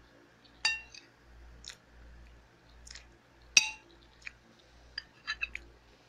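Metal spoon clinking against a dish as rice is eaten, with chewing between. Two sharp clinks, about half a second in and about three and a half seconds in, are the loudest; several lighter taps follow near the end.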